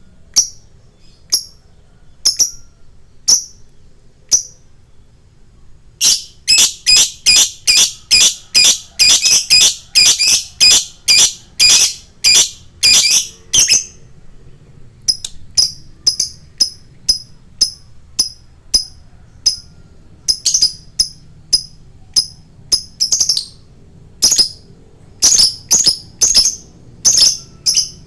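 Fighter lovebird chirping in sharp, high, shrill notes: single chirps about a second apart at first, then long fast runs of chirps, a pause with quicker lighter chirps, and another fast run near the end.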